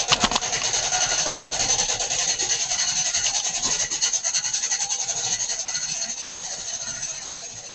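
Hand-cranked winding gear of a weight-driven turret clock being turned to wind one of its roughly 200 kg driving weights up the tower: a fast, continuous rasping clatter of clicks. It breaks off for a moment about a second and a half in, picks up again and grows quieter towards the end.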